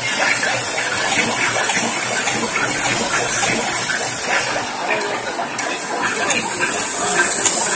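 Vibratory bowl feeder loaded with steel drywall screws, the screws rattling and shaking against the steel bowl in a loud, continuous metallic hiss of tiny clicks.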